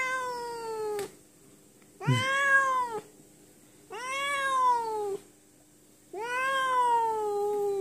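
Domestic cat meowing at a rival cat outside the window: four long, drawn-out meows about two seconds apart, each rising then falling in pitch, the last one held longer.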